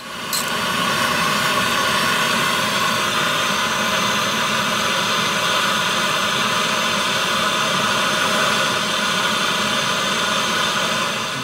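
Handheld gas torch burning with a loud, steady hiss that builds up over the first second, heating a seized exhaust manifold stud red-hot to free it.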